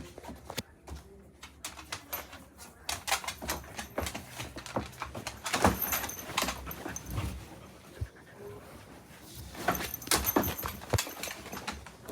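A dog moving about, making irregular clicks and scratching sounds, with a faint short whimper or two.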